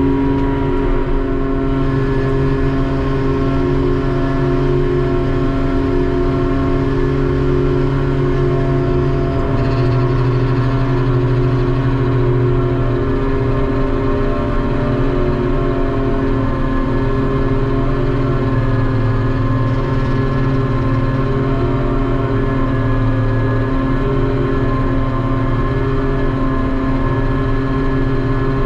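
Ship's deck crane machinery running steadily: a loud, unbroken drone at a fixed pitch, heard from inside the crane's operator cabin.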